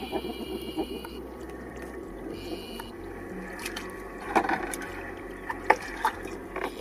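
Sharp metallic clicks and clinks, several in the second half, as a hook is worked out of a snakehead's mouth with pliers and a lip-grip, over a steady watery hiss.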